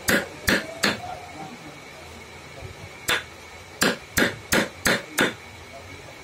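Hammer striking a steel carving chisel held against a hardwood elephant carving, driving it into the wood: three quick sharp taps, a pause of about two seconds, then a single tap followed by five more in quick succession.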